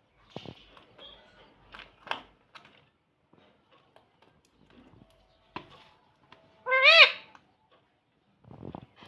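Rose-ringed (ringneck) parakeet making soft clicks and chatter, then one loud short call that rises and falls in pitch about seven seconds in.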